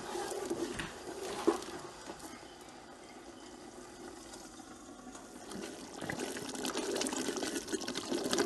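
Thick blended tomato-and-pepper sauce bubbling and spitting in a pot as it reduces, with a wooden spoon stirring through it. The stirring eases off for a few seconds in the middle and picks up again near the end.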